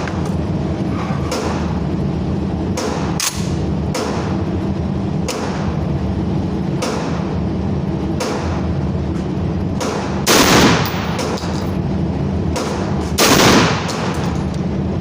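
Gunshots at a firing range: a dozen or so sharp shots at irregular intervals, with two much louder, longer blasts about ten and thirteen seconds in, over a steady low hum.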